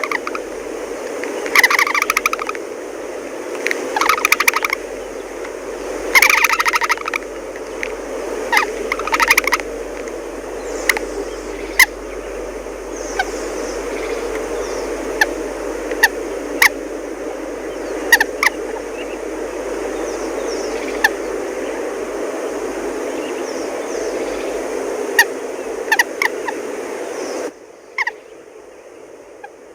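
Birds calling: several longer harsh calls in the first ten seconds, then short sharp single calls every second or two, over a steady noisy background.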